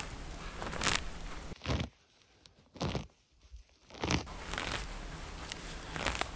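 Hands tearing caribou moss and lichen up from the ground: a series of separate crunching, ripping pulls as the roots and dry lichen give way, with two short quieter gaps in the middle.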